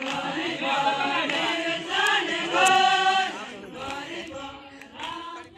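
A group of voices chanting together in a sung call, loudest about two to three seconds in and falling away near the end.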